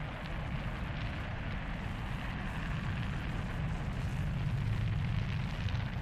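Delta IV Heavy rocket climbing after liftoff: a steady deep rumble with crackle, growing a little louder in the second half.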